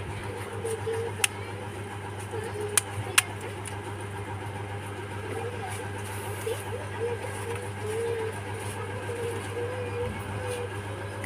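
Steady low hum with a few sharp clicks in the first few seconds: a plastic phone housing being pried open with a small tool.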